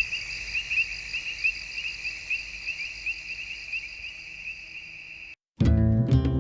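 Crickets chirping in a steady high trill of fast repeating pulses, which cuts off suddenly about five seconds in. After a brief gap, strummed acoustic guitar music starts.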